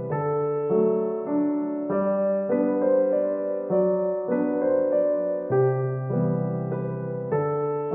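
Background piano music: a gentle melody of notes and chords, changing about every half-second.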